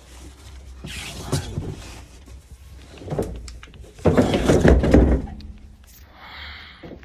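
Knocks and clattering as parts of the van's spare-tire mounting are handled, with a louder burst of rattling and scraping about four seconds in.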